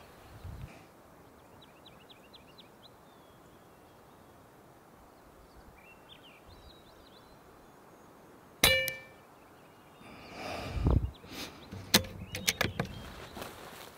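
A single shot from a Kral Puncher Breaker PCP air rifle about two-thirds of the way in: a sharp crack with a short metallic ring. It is followed by a run of knocks and sharp clicks as the rifle is handled, with a few faint bird chirps earlier.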